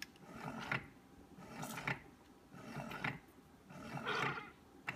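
Keurig 2.0 single-serve brewer starting a brew, its pump running in repeated noisy swells about once a second as it pushes water through before the coffee starts to pour.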